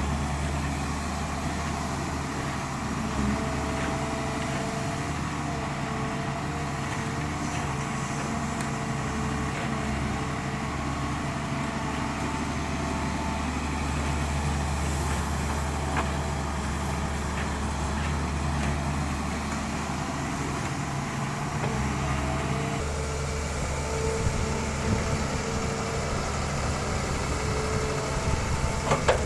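Diesel engine of a Doosan 140 excavator running steadily while loading soil, with a whine that comes and goes and a few knocks near the end.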